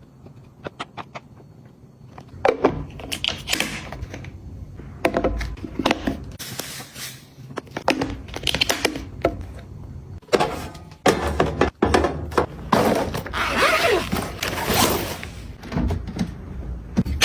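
Household items being handled and set down in a kitchen: a string of knocks, thunks and light clatter, with a longer stretch of rustling noise about two-thirds of the way in.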